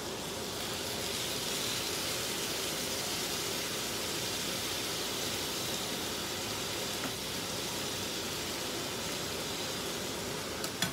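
Marinated steak sizzling steadily in a hot frying pan, with a light click near the end.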